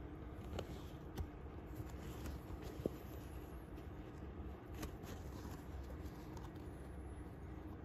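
Faint rustling of fingers rubbing and flexing the fabric of a Norda 001 trail running shoe, with a few small ticks, the sharpest about three seconds in, over a steady low hum.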